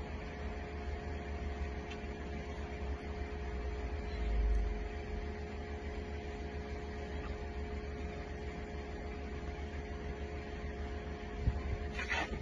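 Steady background hum with two held tones over a low rumble, a brief low thud about four and a half seconds in, and a couple of short rustles near the end.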